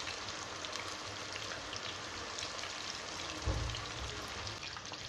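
Whole marinated quail deep-frying in hot oil: a steady sizzle full of small crackles and pops. A low thump about three and a half seconds in.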